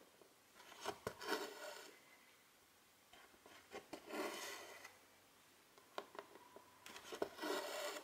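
Silk thread drawn through 11-count cross-stitch fabric three times, each pull a soft rasping swish of about a second, with small ticks in between.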